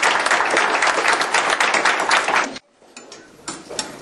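A small roomful of people clapping, a dense run of hand claps that cuts off abruptly about two and a half seconds in. After that, faint room sound with a few scattered clicks.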